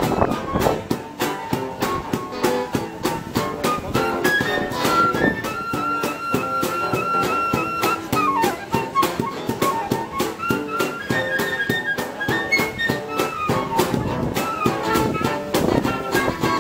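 Small acoustic swing band playing live: two guitars strumming over a steady cajón beat, with a transverse flute playing the melody line from a few seconds in.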